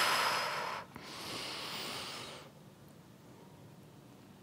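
A woman's breathing during a Pilates exercise: a loud, hissing breath through the mouth that stops under a second in, then a softer breath lasting about a second and a half, then near quiet.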